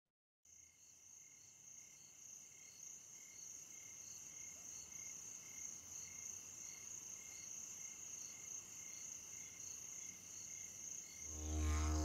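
Cricket-like insect chirping: a steady high trill with a regular pulse about twice a second, fading in after a moment of silence and slowly growing louder. Near the end a low didgeridoo drone comes in.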